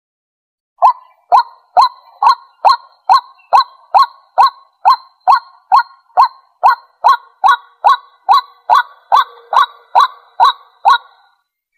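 White-breasted waterhen giving its repeated loud 'kwak' call, a short note that drops in pitch, about two notes a second; it starts about a second in and stops shortly before the end.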